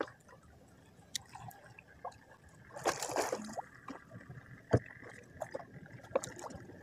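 Water lapping and sloshing against the side of a small boat, with scattered light clicks, a brief rush of noise about three seconds in and one sharp knock a little later.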